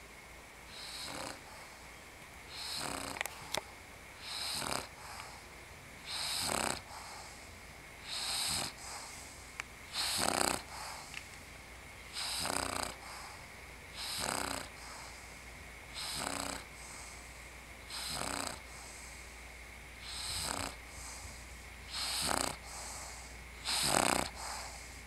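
English bulldog snoring in her sleep, one snore about every two seconds in a steady rhythm.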